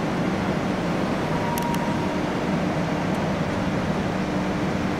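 Locomotive-hauled train of Corail passenger coaches rolling past along the platform: a steady low rumble with a faint hum, and a couple of sharp high clicks about one and a half seconds in.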